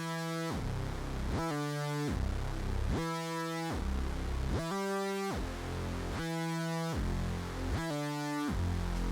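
Background music: a synth-keyboard track of sustained chords alternating with low bass notes, with no singing.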